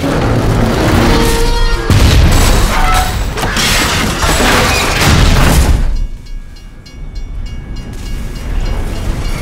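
Derailing passenger train carriages crashing and scraping along the tracks in a loud, dense crash with repeated heavy impacts. About six seconds in the crash noise drops away and a railroad crossing bell rings steadily, before the crash noise swells back near the end.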